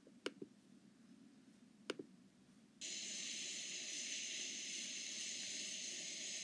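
Two mouse clicks, each a quick double click, about 1.5 seconds apart. About three seconds in, a steady hiss cuts in and holds from the computer's speaker as the played video starts.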